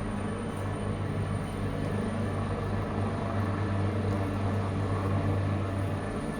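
Helicopter running with a steady low drone and a faint constant high whine.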